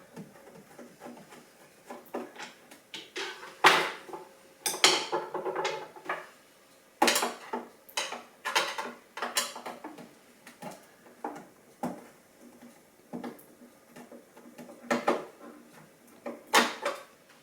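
Parts of a Macintosh Color Classic being handled as it is taken apart: an irregular run of sharp clicks, knocks and short scrapes of plastic and metal, with the loudest knocks about four and seven seconds in.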